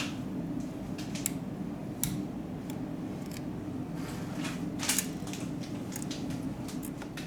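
Scattered small clicks and scrapes of hand tools working on a smartphone during disassembly, over a steady low hum.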